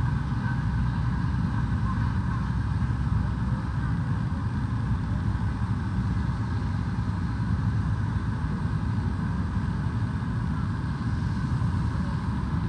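Steady aircraft engine noise on an airport apron: an unbroken low rumble with a steady whine higher up.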